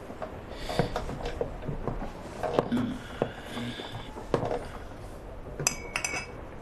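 Scattered light knocks of goods handled on shelves and a wooden counter, with a few ringing glass clinks of bottles, the brightest cluster near the end, over the hiss of an old film soundtrack.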